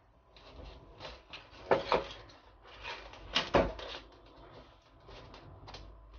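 Hand-handling noise of insulation paper and adhesive tape being fitted into the end of a submersible motor's stator: irregular rustling and crinkling with a few sharper knocks, the loudest about two and three and a half seconds in.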